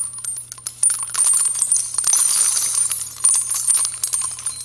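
Coins jingling and clinking as a sound effect: many quick, uneven metallic clinks in a continuous stream, with a faint low hum beneath.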